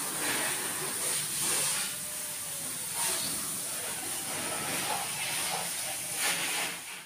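Steady hiss of water spray at a car wash, with a wash mitt rubbing over a soapy van body in a few strokes.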